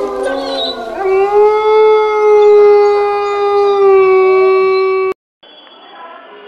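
Wolf howling: the tail of one howl falling in pitch, then a single long howl that rises slightly and holds steady for about four seconds before cutting off abruptly. After a brief silence a fainter, steady tone begins near the end.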